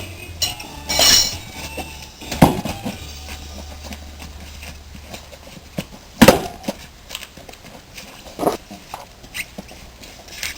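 Metal hand tools and wheel parts clinking and knocking while a moped tyre is being fitted: scattered clicks with a few louder knocks about one, two and a half, six and eight and a half seconds in.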